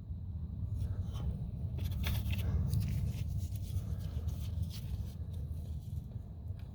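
Faint light clicks and scrapes of small metal parts being handled, a washer and retainer clip being worked onto the shifter linkage, over a steady low rumble.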